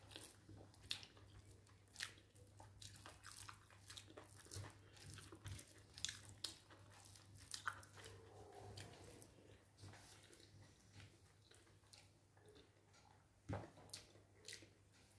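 Faint chewing and mouth sounds of someone eating chicken tehari, a spiced rice dish: irregular small wet clicks and squishes, with a few sharper ones. A faint steady low hum runs underneath.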